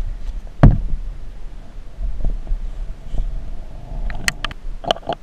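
Close handling noise: one loud thump a little over half a second in, low rumbling, and a few sharp clicks and knocks near the end, as gear is handled at the motorcycle.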